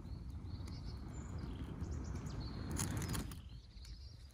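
A person blowing steadily onto the kindling in a small folding wood stove to fan the flame, a long breathy rush that stops about three seconds in.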